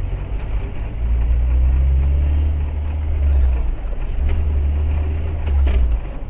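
Low rumble of a moving car's engine and road noise, swelling and easing a few times.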